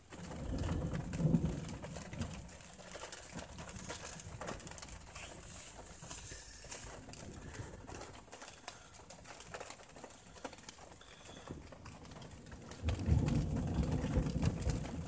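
Thunder rumbling twice, once in the first couple of seconds and again near the end, with rain ticking and pattering on the car throughout.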